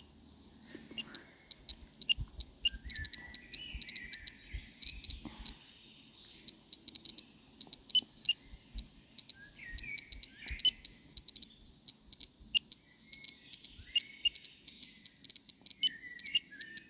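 Handheld radiation detector ticking at irregular, random intervals, a few counts a second: its audible count of gamma radiation from a sample that reads as uranium and potassium-40. Short falling bird calls sound now and then.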